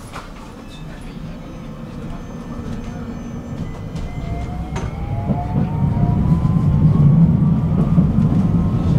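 Stockholm tram running and gathering speed: the low rumble grows steadily louder while a faint motor whine rises in pitch through the second half. There is a single sharp click about five seconds in.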